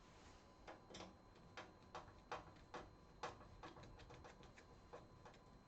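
A screwdriver backing a screw out of a PC case's side panel: a faint run of irregular small metal clicks and ticks, coming faster partway through.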